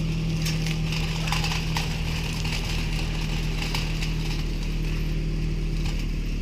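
Car engine idling steadily, with a handful of scattered clicks and knocks over it.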